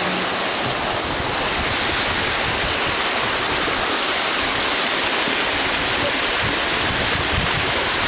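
Waterfall rushing, a steady unbroken roar of falling water.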